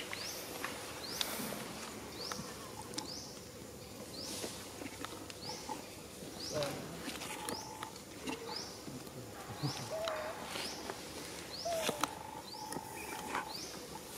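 Wild animal calls: a short rising chirp repeated every second or two, with three short wavering calls lower in pitch in the second half and a few sharp clicks.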